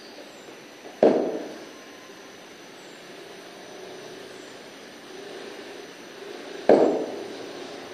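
Cricket bat striking a leather cricket ball twice, about six seconds apart, each a sharp crack with a short ringing tail, over a steady background hum.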